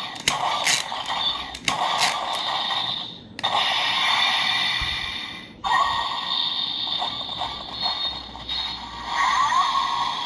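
Electronic sound effects played through the small speaker of an Ultraman Blazar Chilsonite Sword toy. This is its Fardran-mode second sound effect, set off by pulling the sword's lever and pressing the Fardran contact by hand. The effect comes in several short segments with brief breaks, then runs in a longer stretch.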